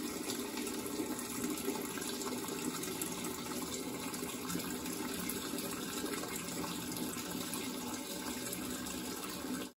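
Thin stream of water leaking from the corner of a freshly filled steel plasma-table water table, splashing steadily into a floor drain. It cuts off suddenly at the end.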